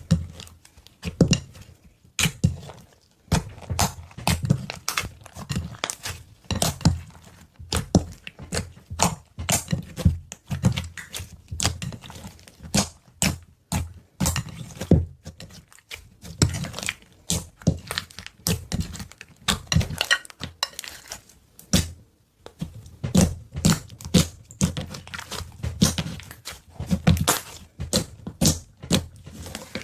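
Slime being squeezed and poked by hand: a quick, irregular run of sharp pops, clicks and crackles over soft thuds, with a few brief pauses.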